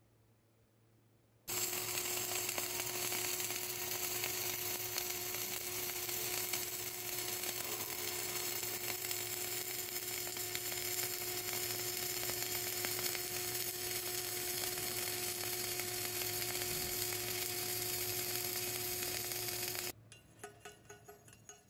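Flux-cored arc welding: the steady crackling sizzle of the arc laying a fillet weld between a pipe and a plate, with a faint steady hum under it. It starts about a second and a half in and cuts off sharply near the end.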